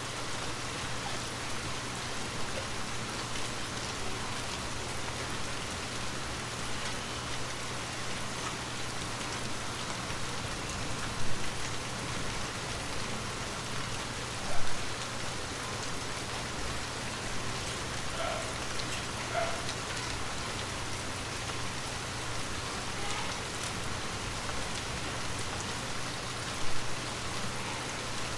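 Light rain falling steadily on a window: an even hiss of drops with a low steady hum underneath. Three single drops hit noticeably louder along the way.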